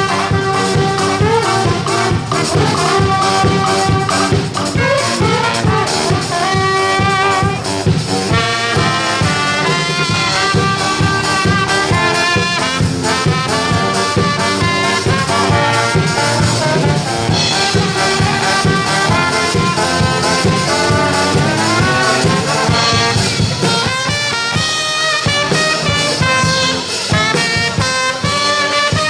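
Brass band playing an upbeat tune, trumpets and trombones over a steady beat.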